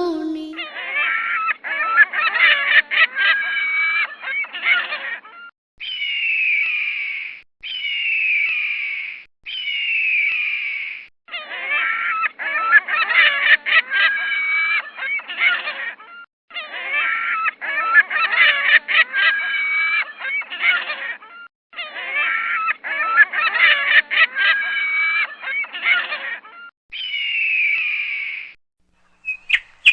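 A bird calling loudly and raucously in long, cackling phrases of four to five seconds, with a few shorter single calls that slide down in pitch between them.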